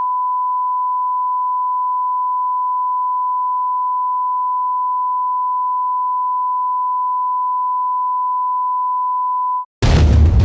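A single steady electronic beep tone at one fixed pitch, held unbroken for nearly ten seconds before cutting off. Loud music with heavy bass and sharp hits comes in right after, near the end.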